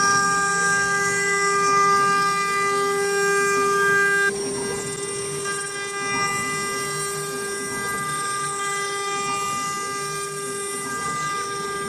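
CNC router spindle running with a steady high whine and a row of overtones as it cuts 3K carbon fiber board. The sound gets noticeably quieter about four seconds in.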